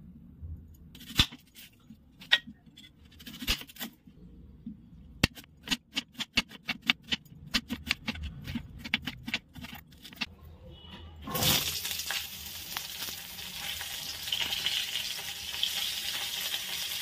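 A kitchen knife chopping a red onion on a wooden cutting board: a few single knocks about a second apart, then a quicker run of chops at about four a second. About eleven seconds in, a loud steady sizzle starts as flat broad beans shallow-fry in hot oil in a wok.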